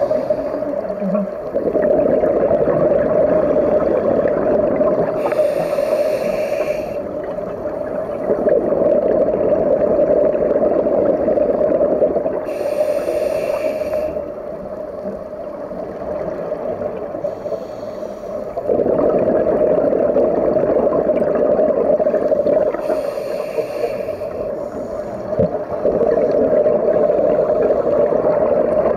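Underwater sound of a scuba diver breathing through a regulator: a hiss of inhalation three times, some six to ten seconds apart, over a steady bubbling, gurgling rumble.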